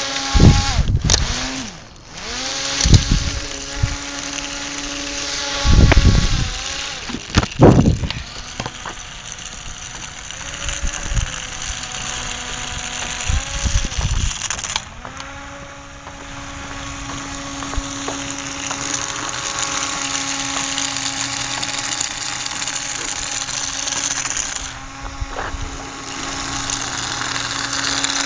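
Small electric motor spinning the propeller fan of a homemade fan-driven RC car: a steady whine whose pitch dips and climbs back several times. Loud low bumps and knocks break in during the first eight seconds.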